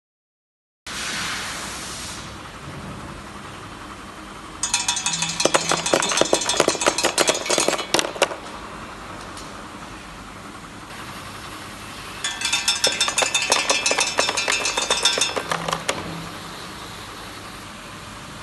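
Automatic de-godet machine running with a steady mechanical hum, with two spells of rapid clinking and clattering, a few seconds each, as containers and their carrier pucks (godets) are pushed through it and separated.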